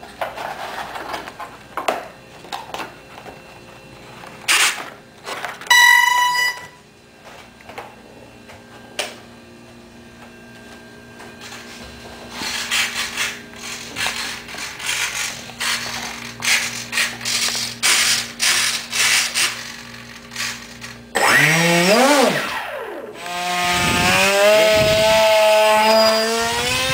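Handling clicks and knocks and a short electronic beep, then an electric RC model's brushless motor and pusher propeller spinning up with a rising whine about 21 seconds in, running on at high pitch near the end.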